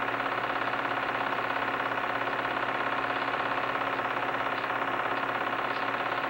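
Film projector running: a steady mechanical whir with a fast, even flutter and a low hum underneath.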